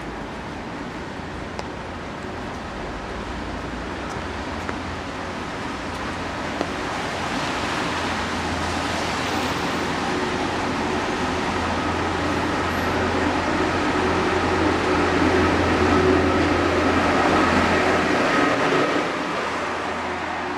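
A large vehicle passing close by: a steady mechanical hum and rush that grows louder for about fifteen seconds, then falls away near the end.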